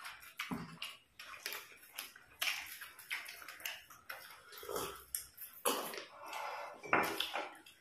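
Eating by hand: fingers squelching and mixing rice and chicken curry on a plate, with chewing and lip smacks, in irregular short bursts.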